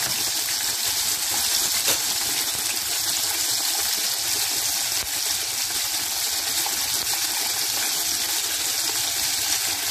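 Battered chicken fillet deep-frying in hot oil: a steady, vigorous sizzling and bubbling of the oil around the golden-brown, nearly done fillet.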